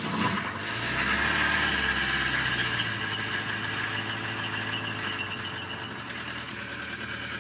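Volvo Penta inboard marine diesel just started after pre-glowing: it runs a little faster and louder for the first two seconds, then settles into a steady idle.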